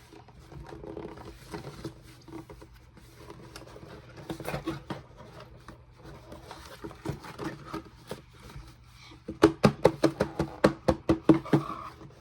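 Plastic Play-Doh tubs and packaging being handled, with rustling and scattered clicks. About three-quarters of the way through, a quick run of loud sharp clicks and taps, several a second, lasts about two and a half seconds.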